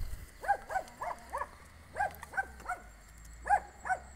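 A dog barking in high-pitched yaps, about nine short barks in loose groups of two or three.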